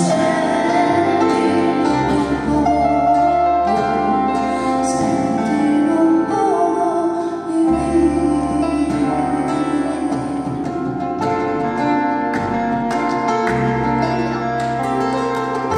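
Live performance of a song: a woman singing, accompanied by electric keyboard and acoustic guitar. Near the end the voice drops out and the guitar and keyboard carry on.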